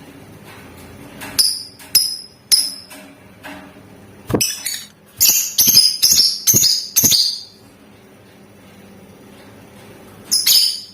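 Lovebird calling: short, sharp, high-pitched chirps, a few spaced out at first, then a quick run of about seven in the middle, and one more near the end.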